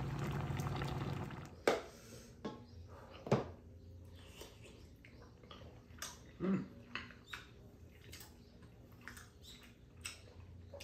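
Tteokbokki sauce simmering and bubbling in a pan for about a second, then scattered sharp clicks and taps of chopsticks against a metal pan and dishes, with quiet eating sounds. The two loudest clicks come in the first few seconds.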